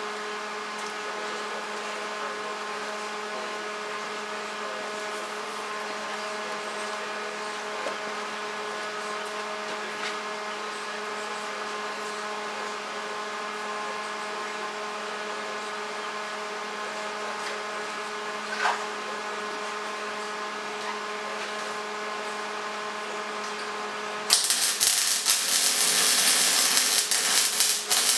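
A steady electric hum with several even tones. Near the end a MIG welding arc strikes and crackles loudly and continuously as the welder runs a bead on quarter-inch steel.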